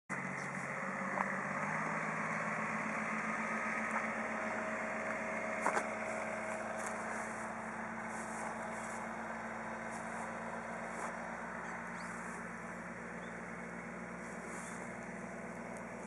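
An engine running steadily, its hum slowly fading, with faint soft footsteps in grass and a few sharp clicks.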